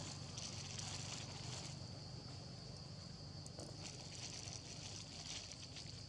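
Faint outdoor background: a steady high-pitched hiss over a low hum, with scattered faint crackles about half a second in, around four seconds in and again a little after five seconds.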